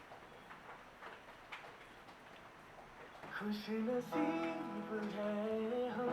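Sony SRS-XB31 Bluetooth speaker starting to play a Hindi song, its instrumental intro of held notes coming in about halfway through. Before the music, only faint clicks about every half second.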